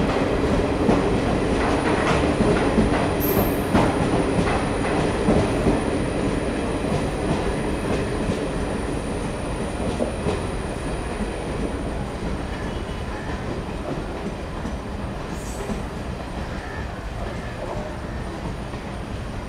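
Passenger coaches of an express train rolling past, their wheels clattering over rail joints in a loose beat of knocks that thins out after the first few seconds. The rumble slowly fades as the train moves away.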